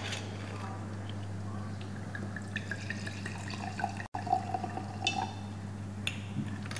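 White wine poured from a screw-cap bottle into a wine glass, glugging and gurgling for about three seconds from about two seconds in. A steady low hum runs underneath.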